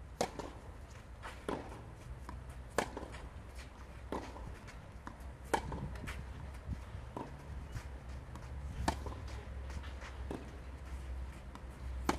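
Tennis rally on a clay court: a racket strikes the ball in a regular back-and-forth, with sharp hits about every one and a half seconds and softer ball bounces between them, over a low steady rumble.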